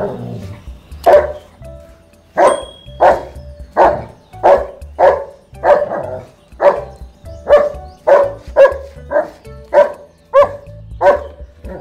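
A German shepherd barking over and over in play, a steady run of single barks a little under two a second, nose down at a stone on the ground.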